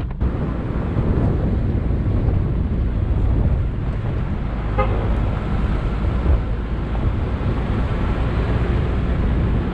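SUV driving on a gravel track: a steady low rumble of engine, tyres on gravel and wind. About five seconds in comes a brief horn toot.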